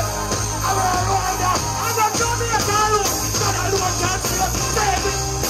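Live dancehall music through a concert sound system: a steady heavy bass line under a wavering vocal line.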